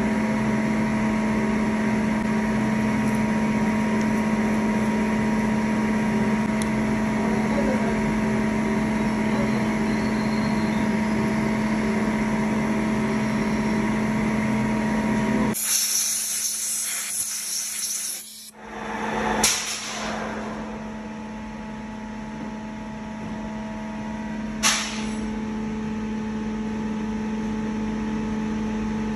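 A metal lathe runs with a steady hum as a spiral-flute tap cuts a thread into a 316 stainless steel nut blank in the chuck. About halfway through, the hum drops away under a sharp hiss lasting about three seconds. Two brief hisses follow later.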